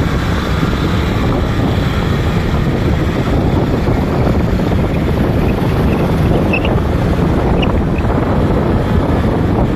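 Loud, steady wind buffeting the microphone, a rough low rumble, with a few faint short high chirps near the end.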